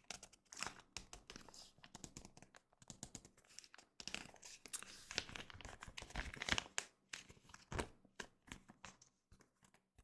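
Foil Pokémon booster pack wrapper being crinkled and torn open: an irregular run of crisp crackles and rips.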